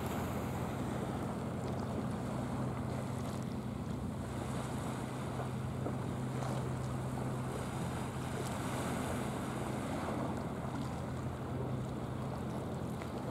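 A boat's engine running at a steady drone, with wind buffeting the microphone and a wash of water.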